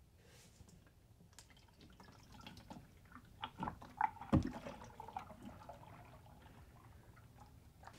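Used motor oil pouring faintly from a plastic drain pan's spout into a plastic oil jug, trickling and dripping as the jug fills, with a few brief louder moments around the middle.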